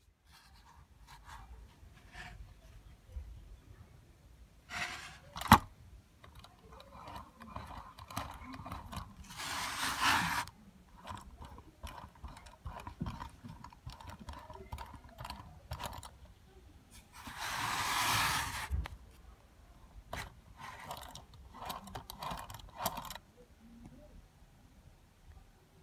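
Irregular small clicks, taps and scrapes from a toy steam engine's metal parts being handled, with one sharp click about five seconds in. Twice, a longer rushing hiss of about a second and a half breaks in, around ten and eighteen seconds in.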